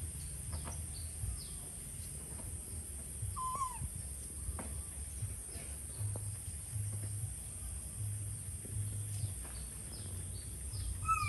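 Outdoor ambience: a low rumble that pulses in short stretches, faint scattered ticks, and two short whistled calls with a falling pitch, one a few seconds in and one at the very end.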